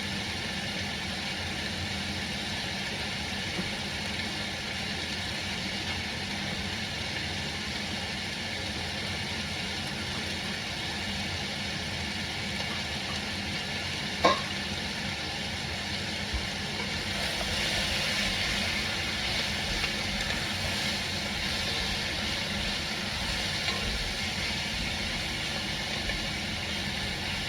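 Carrots, peppers and onion sautéing in oil in a pot, a steady sizzle. A single knock about halfway through, and the sizzle grows a little louder after it.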